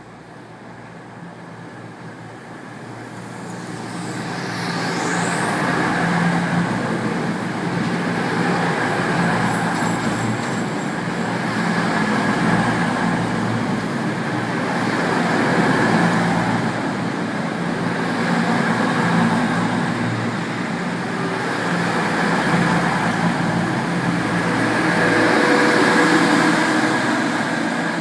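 East Midlands Trains Class 222 Meridian diesel-electric multiple unit running alongside the platform, its underfloor diesel engines droning. The sound grows louder over the first several seconds, then holds steady, swelling and easing every three seconds or so as the cars go by. A brief falling high whine comes about five seconds in.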